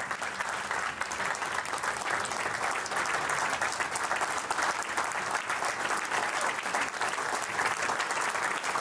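Audience applauding: many hands clapping steadily, growing a little louder.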